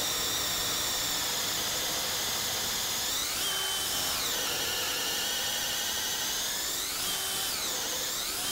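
Cordless DeWalt drill turning a 3.5-inch carbide-tipped hole saw through a wooden 4x6, the motor whining steadily as the saw plows through the wood. Twice the pitch sags briefly under load and climbs back.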